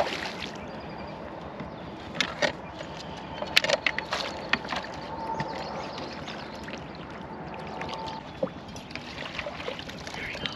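Water splashing and sloshing as a hooked fish is played and reeled in on a light fishing rod, with a few sharp, short splashes about two to four seconds in and again near the end.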